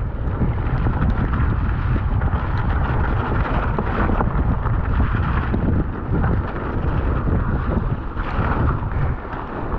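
Wind buffeting the camera microphone as a mountain bike rolls down a wet gravel trail, with a steady run of small knocks and rattles from the tyres and bike over the stones.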